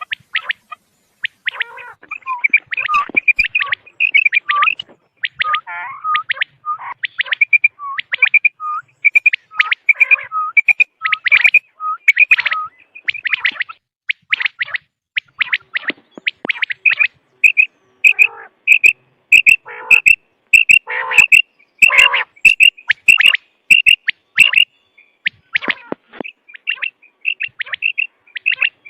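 Quail calling in a rapid run of short, sharp, high notes, many a second and packed close together: a recorded quail call of the kind played to lure quail.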